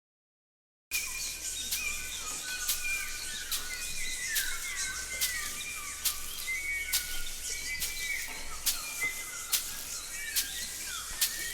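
Bird chirps: many short whistles sliding downward, overlapping one another, with sharp clicks scattered among them. They begin about a second in, after a moment of dead silence.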